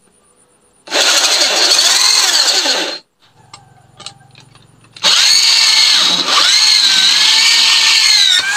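Corded electric drill boring holes in the thin steel of an angle grinder's blade guard. It runs twice, for about two seconds from a second in and again for about three seconds from five seconds in, with the motor's whine wavering in pitch.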